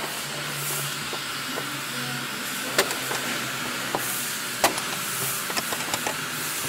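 Plastic push switches on a car's overhead map-light console clicking as they are pressed, several sharp clicks over a steady hiss.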